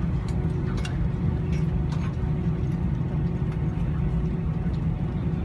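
Steady low cabin rumble of a jet airliner taxiing, with its engines at low power and a constant hum, and a few faint clicks in the first two seconds.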